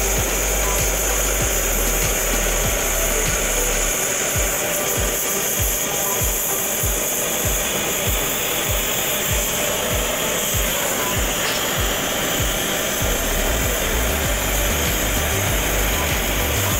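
Gas torch hissing steadily as its flame heats a radiator's brass upper tank and filler rod is fed in to solder the tank onto the core.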